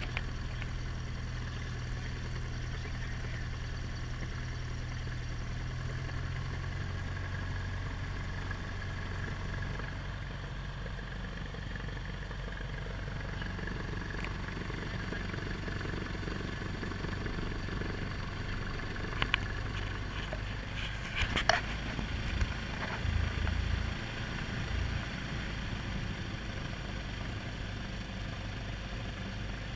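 Cessna 172P's four-cylinder Lycoming engine and propeller running at low taxi power, heard from inside the cockpit as a steady drone; the engine note shifts slightly about seven seconds in. A few sharp clicks come about two-thirds of the way through.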